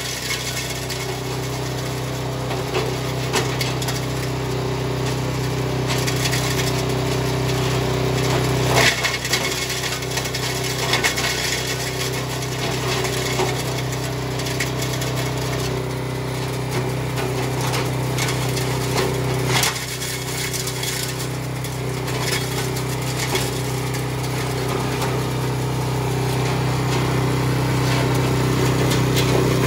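Honda GC160 single-cylinder four-stroke engine on a Kioritz KS50 wood chipper running steadily at speed, with a few sharp cracks about nine and twenty seconds in.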